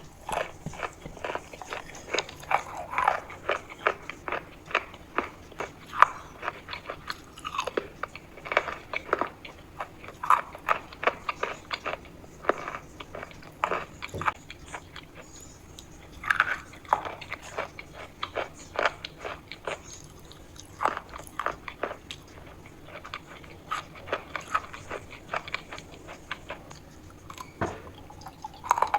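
Repeated biting and chewing of crunchy chalk, with many sharp crunches coming several a second in an irregular rhythm.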